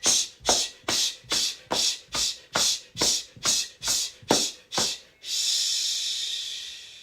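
A person hissing a sharp 'shh' a bit over twice a second, with a light thump on each beat: the qigong healing sound for the liver. A little after five seconds in, it gives way to one long 'shhh' breathed out that fades away.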